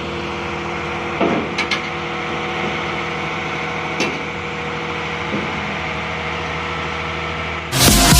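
Excavator's diesel engine running steadily, with a few sharp metallic knocks. Loud electronic dance music with a heavy beat cuts in just before the end.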